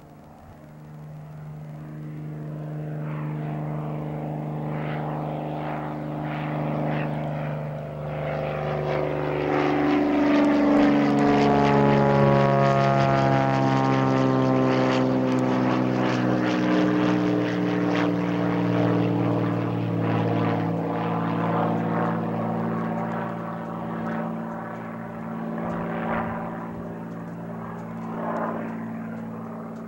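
Beechcraft Bonanza A36 single-engine propeller plane climbing out after takeoff, its flat-six piston engine and propeller drone growing louder as it passes close by about ten to fourteen seconds in. The pitch falls as it goes past, then the sound fades as it climbs away.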